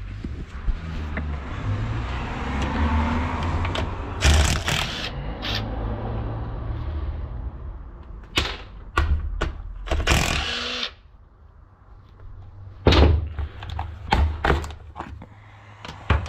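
Knocks and clatter of tools and metal parts as a Husqvarna 61 chainsaw is taken apart, with a cordless drill-driver used on its screws. There is one loud knock about four seconds in, a cluster of sharp knocks and a short burst between about eight and eleven seconds, and a few single knocks near the end.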